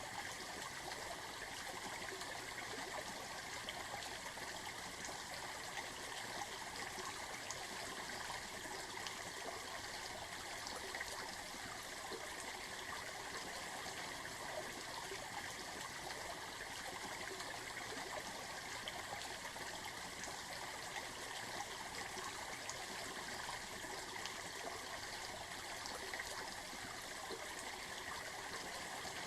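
Running water from a stream, a steady babbling flow without change.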